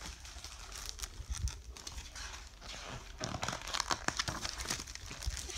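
Paper rustling as the large pages of a picture book are handled and turned, loudest about three to four seconds in.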